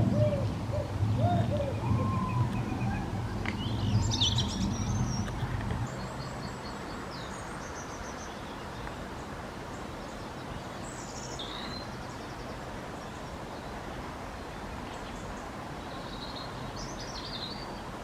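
Small songbirds calling and singing: scattered short, high, thin chirps and trills over a steady background hiss. A low rumble under the birds cuts off abruptly about six seconds in.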